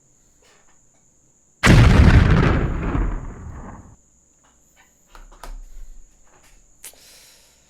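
Explosion sound effect: a sudden loud blast a little under two seconds in that dies away over about two seconds, followed by a few faint knocks.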